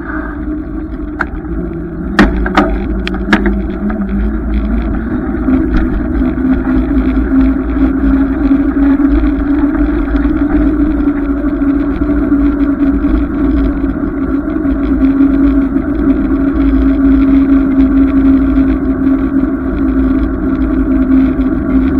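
Riding noise from a bicycle-mounted camera: a deep wind and road rumble, with a hum that rises in pitch over the first several seconds as the bike picks up speed and then holds steady. A few sharp knocks come about two to three seconds in.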